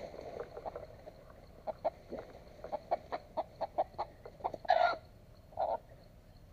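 Red junglefowl rooster clucking in short, irregular calls, then giving two louder squawks near the end as it is grabbed by hand.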